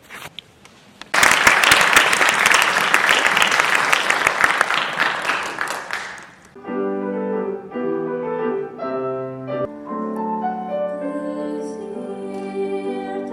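Audience applauding for about five seconds, then a piano begins playing slow, held chords.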